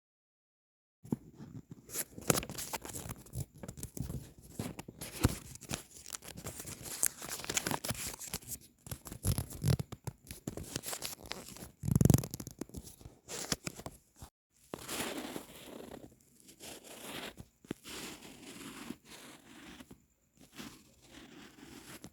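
Paper being handled: irregular crinkling, tearing and scratching while a paper squishy is made, beginning after a second of silence, with one louder knock about twelve seconds in.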